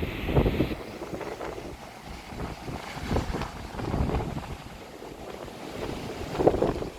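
Strong wind gusting against the microphone with a low buffeting rumble, over the wash of rough surf stirred up by a typhoon.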